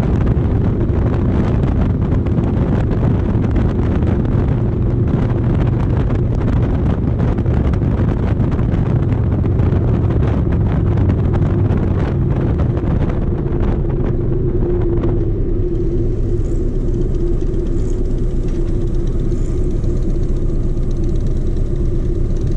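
Harley-Davidson V-twin motorcycle under way, its engine running under heavy wind and road rush. About fifteen seconds in, the wind rush falls away as the bike slows into stopped traffic, leaving the engine's low steady note.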